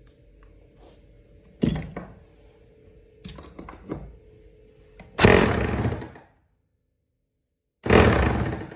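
Sencan 220 V electric demolition hammer with a 17 mm chisel bit, test-run on a board in short bursts: a brief burst about two seconds in and smaller ones after it, then two louder runs of about a second each.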